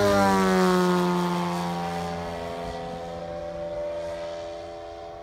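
Giant-scale radio-controlled Grumman F3F model biplane flying past: the drone of its engine and propeller drops in pitch just as it passes, then fades as it flies away.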